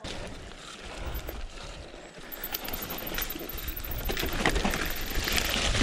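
Mountain bike descending a wet, muddy trail: tyres on the dirt with scattered knocks and rattles from the bike over rough ground, and a low rumble, growing louder toward the end.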